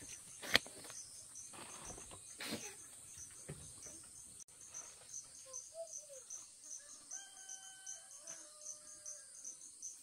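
Insects chirping steadily, with a high chirp repeating about three times a second. There is a sharp click about half a second in, a few soft knocks, and later a brief held call.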